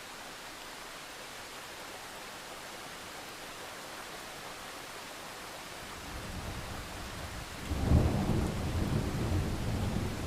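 Steady rain hissing, with a roll of thunder that builds up low from about six seconds in and breaks into a loud crack and rumble near the end.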